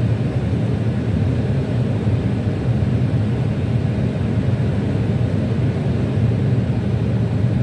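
Airbus A321 flight-deck noise on final approach: a steady low rumble of airflow and engines.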